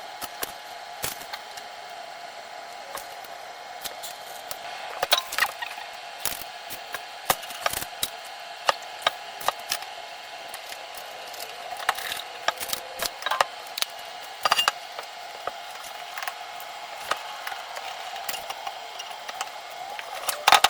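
Hand tools and pipe fittings at work in plumbing: many irregular sharp clicks and knocks, some in quick ratchet-like runs, over a steady hum, with a loud cluster of knocks near the end.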